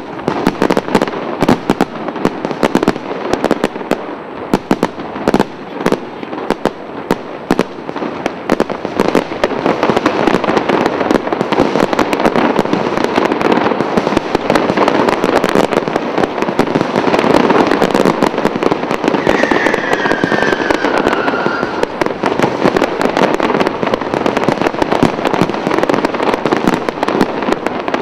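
Fireworks display: a dense, continuous run of bangs and crackling that grows thicker a third of the way in, with a short falling whistle about two-thirds of the way through.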